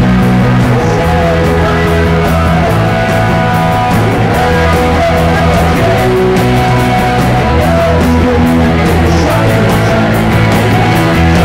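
Rock band playing live: electric guitar, bass and drums, with a steady beat of cymbal strokes.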